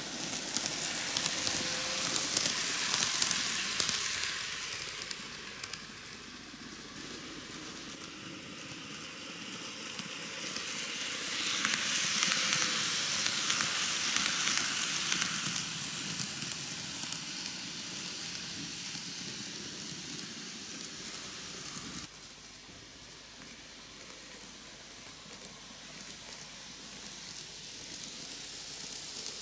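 N gauge model train, a Microace Seibu 4000 series four-car set, running on curved TOMIX cant-rail track: a hissing rattle of wheels and motor. It swells twice as the train passes close, once at the start and again a little after ten seconds. It drops suddenly to a softer hiss about twenty-two seconds in as the train runs off into the distance.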